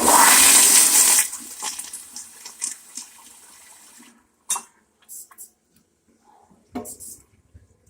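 Kohler toilet flushing loudly: a strong rush of water, loudest for about the first second, that dies away over the next few seconds.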